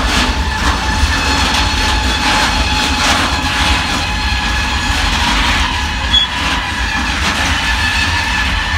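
Container freight train rolling past, its wagon wheels clacking over rail joints, with a steady high-pitched tone over the rolling noise. A sharper knock comes about six seconds in.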